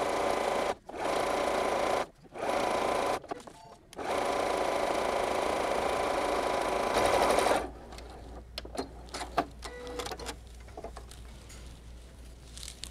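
Janome computerized sewing machine topstitching along the edge of a fabric tote-bag handle, running in short runs with brief stops between them, then one longer run of about three and a half seconds. After it stops, a few light clicks and handling sounds follow as the strap is taken off the machine.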